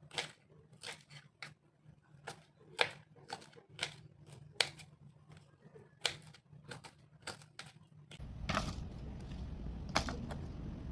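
Kitchen knife slicing green chillies on a wooden cutting board: sharp, irregular knocks of the blade through the chilli onto the board, about one or two a second. Near the end a steady hiss comes in, with a couple of sharp clicks.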